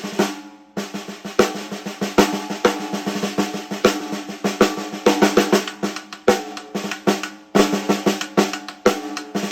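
A PDP 14 x 6.5 inch snare drum being played: a roll at the start, then a steady run of loud and softer strokes, the drum ringing on between hits.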